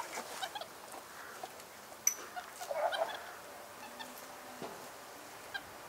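Scattered short animal calls, brief squeaks and a honk-like call, among light clicks and rustles.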